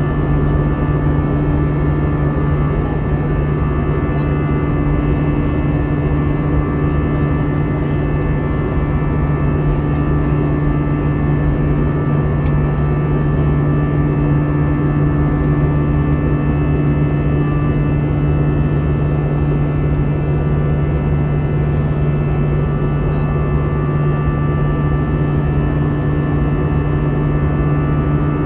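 Steady cabin drone of an Airbus A320-214 in the climb after takeoff: CFM56 jet engines and airflow heard from inside the cabin, a constant low hum with several thin whining tones above it.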